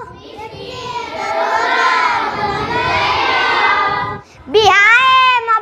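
A group of children singing a line of a school song together, many voices loosely in unison. About four and a half seconds in, a single child's voice takes up the singing alone.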